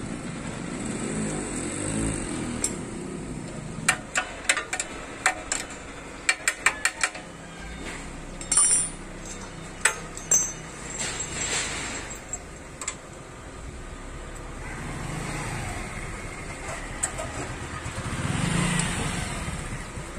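Hand tools clinking and knocking against the metal of a generator's small engine, a quick run of sharp clicks in the middle, over a low rumble that swells near the end.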